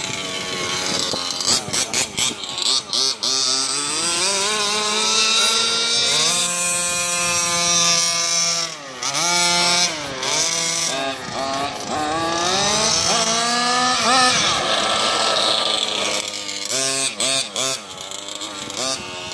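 Small two-stroke petrol engine of a 1/5-scale HPI Baja radio-controlled buggy, revving up and down as the car is driven. The pitch climbs and holds high, then drops and climbs again several times before falling away near the end.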